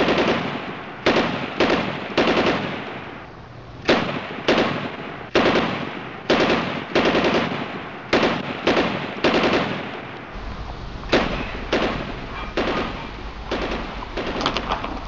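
A long string of pistol shots from a Glock 34, fired one after another about every half-second to a second, each with a ringing echo. From about two-thirds of the way in, a steady low hum runs under the shots.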